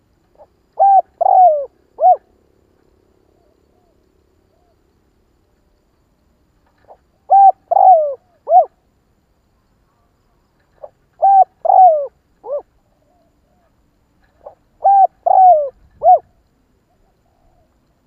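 Spotted dove cooing: four phrases a few seconds apart, each a faint short lead-in note followed by three deep coos, the middle coo the longest and falling in pitch.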